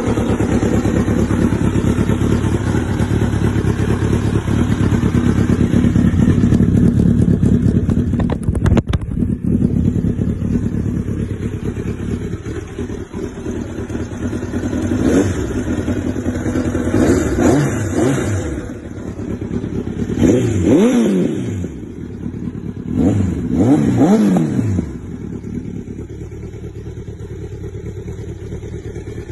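A 2006 Honda CBR1000RR's inline-four runs through a Big Gun Evo S aftermarket exhaust, idling just after a cold start. About halfway through come several quick throttle blips that rise and fall, and near the end it settles back to a quieter idle.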